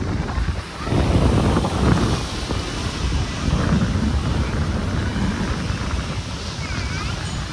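Beach ambience: surf washing ashore and wind buffeting the microphone, with a low rumble. Faint voices of beachgoers come through now and then.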